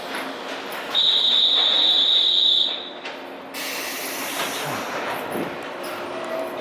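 JR West 117 series electric train at a station platform. About a second in, a loud, high, steady tone sounds for nearly two seconds; then a hiss starts and the train's noise carries on as it sets off.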